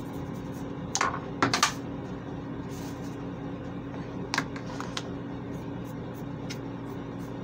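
Small hard objects clicking and clacking as they are handled: a click about a second in, a quick cluster of louder clacks just after, and a couple more around four to five seconds in, over a steady low hum.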